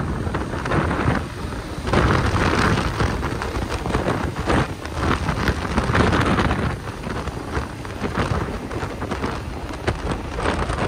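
Wind buffeting the phone's microphone while riding on the back of a moving motorcycle taxi, a dense rushing noise that swells and eases in gusts, with road and traffic noise beneath.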